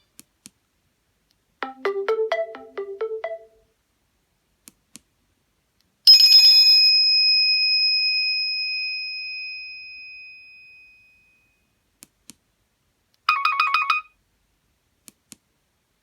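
Short Nokia Asha 302 phone alert tones played one after another. First comes a quick run of about eight electronic notes, then a single bell-like ping that fades out over about five seconds, then a brief rapid trill near the end, with faint clicks in the gaps.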